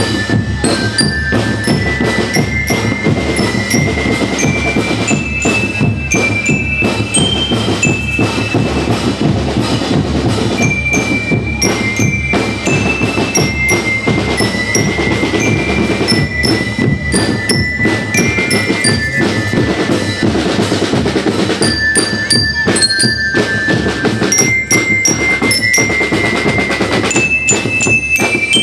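Marching rhythm band playing: bell lyres ring out a melody of single notes stepping up and down, over a steady beat of marching drums.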